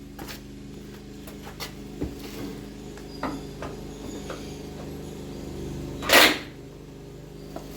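Scattered clinks and knocks of hand tools on metal during suspension bolt removal, over a steady low hum. One loud short burst of noise comes about six seconds in.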